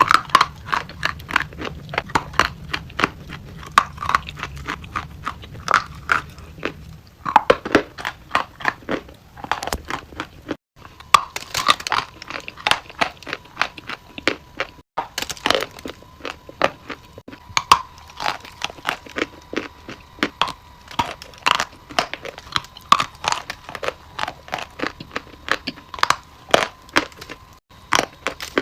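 Brittle material being crunched: a dense, irregular stream of sharp crunches and crackles, with a faint steady high tone in the background from about halfway through.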